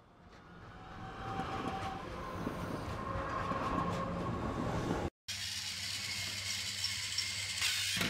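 Rumbling train running noise fading in over the first couple of seconds. After a brief break about five seconds in, it is replaced by a steady low hum with a high hiss.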